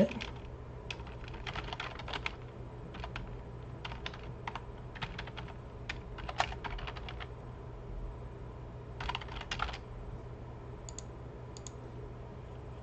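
Computer keyboard being typed on in short runs of keystrokes, with a quick flurry about nine seconds in and a couple of light clicks near the end.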